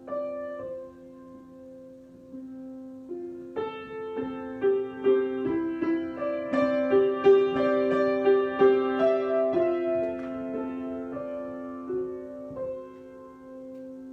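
Solo piano improvisation: a low note held steady underneath while sustained notes ring above, building to a busier stretch of quick notes from a few seconds in and thinning out again near the end.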